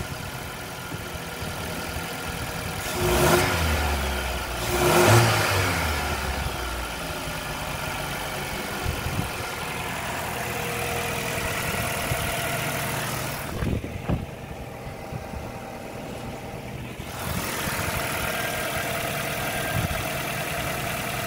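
2009 Nissan X-Trail's four-cylinder petrol engine running just after a start, revved briefly twice about three and five seconds in, then idling steadily.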